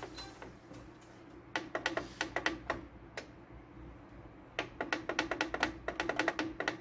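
Plastic keypad buttons on a Canon fax machine clicking as they are pressed in quick succession, in two runs: a short one about a second and a half in, and a longer, faster one from about four and a half seconds.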